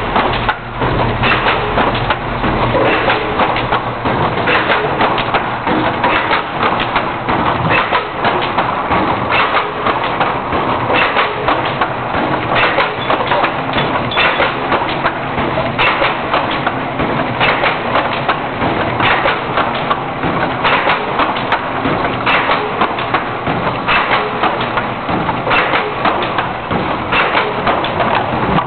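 Quad stayer box-corner taping machine running: a dense mechanical clatter, with a heavier stroke repeating about every one and a half seconds as it cycles.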